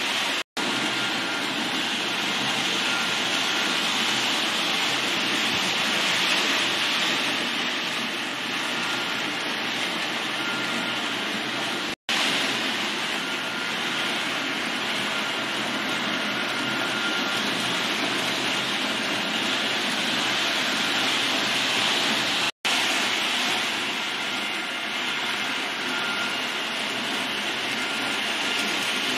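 H0 model train, a Roco Taurus electric locomotive pulling eight four-axle tank wagons, running along the track with a steady rolling noise. The sound cuts out for an instant three times, about half a second in, near the middle and about two thirds of the way through.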